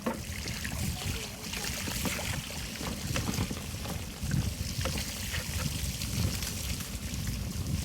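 Bicycle tyres rolling through shallow floodwater on a trail, with steady swishing and splashing water and a low, uneven rumble underneath.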